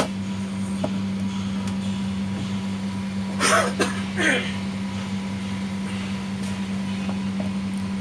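Steady low hum of an energized AC contactor coil. One sharp click sounds right at the start, and two short throat or voice sounds come about three and a half and four seconds in.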